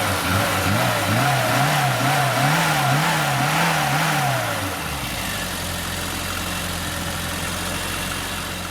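Car engine being blipped in a quick rhythm, the revs rising and falling about twice a second, then settling to a steady idle about halfway through and fading out at the end.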